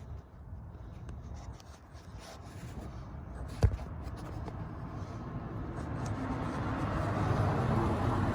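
Rubbing and handling noises from hands at work, with one sharp click about three and a half seconds in and a rustling noise building up toward the end.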